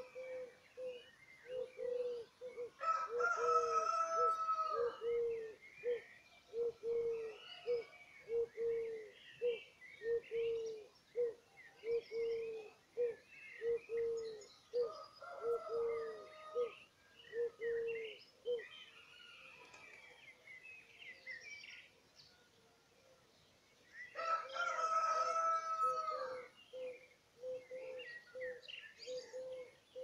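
Birds singing: scattered high chirps and warbles over a short low note repeated about twice a second, which stops for a few seconds past the middle. Three louder calls of a couple of seconds each stand out, about three, fifteen and twenty-four seconds in.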